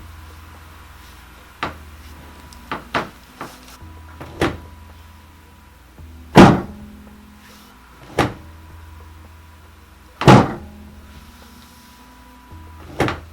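Thuds and knocks of a chiropractic adjustment on a treatment table. Scattered light knocks in the first few seconds are followed by two loud thuds about four seconds apart, with smaller knocks between and after them, over a low steady hum.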